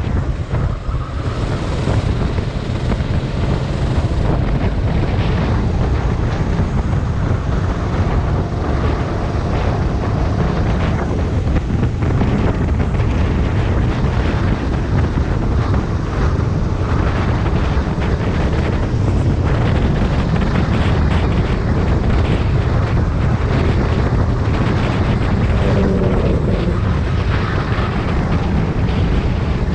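Sodi rental kart's engine running hard under racing, heard from a camera on the kart, with wind buffeting the microphone and other karts running close by.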